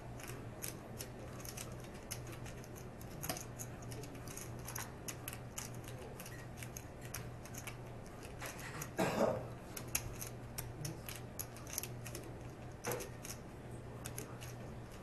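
Clay poker chips clicking against each other in many small irregular clicks, as chips are handled and riffled at the table. A steady low hum runs underneath, and a brief louder sound comes about nine seconds in.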